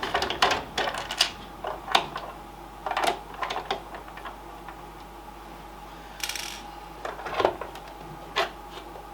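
Screwdriver clicking and knocking against the plastic housing of a gaming steering wheel being taken apart, as it is pushed into deep screw holes that it is too short to reach. A quick run of taps and clicks over the first few seconds, a brief hissy scrape about six seconds in, and a couple more knocks near the end.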